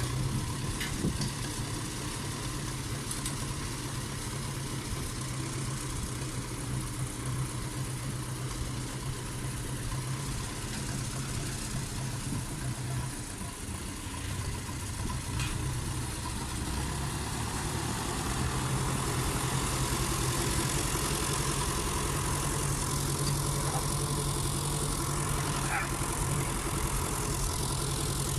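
Tractor engine running steadily at idle just after starting, getting somewhat louder about two-thirds of the way through.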